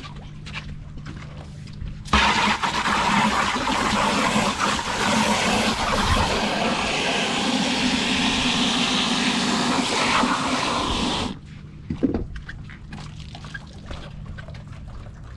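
Water rushing from a hose nozzle, switched on about two seconds in and cut off suddenly about nine seconds later.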